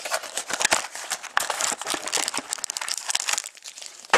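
Irregular crinkling and rustling of plastic wrapping and packaging as a box of hockey trading cards is opened and its packs are handled and taken out.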